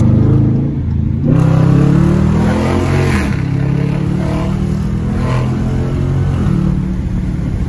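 2020 Dodge Challenger R/T's 5.7-litre HEMI V8 with its mid mufflers deleted, heard from inside the car as it accelerates. The exhaust note climbs and eases off twice, then settles to a steady cruise near the end.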